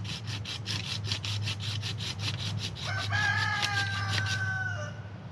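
Hand pruning saw cutting through a green maple branch in fast, even strokes, about five a second, stopping shortly before the end. Partway through, a rooster crows once for about two seconds.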